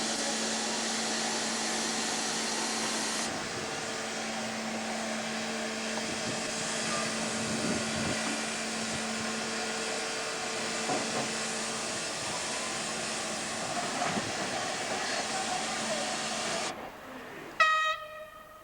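Steam hissing steadily from a steam engine, with a faint steady hum underneath. The hiss cuts off suddenly near the end, and a moment later the steam whistle gives one short blast.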